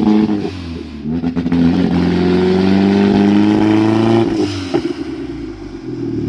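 Audi A4's engine being revved: the revs hold high, dip briefly, climb back and hold, then drop about four seconds in and settle to a lower steady running speed.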